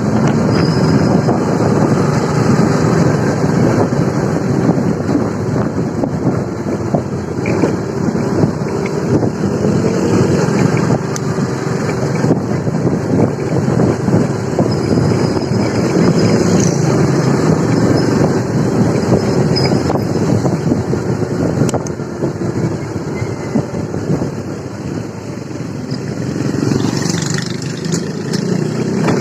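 A motorcycle being ridden, its engine running under loud, rough wind buffeting on the rider's microphone.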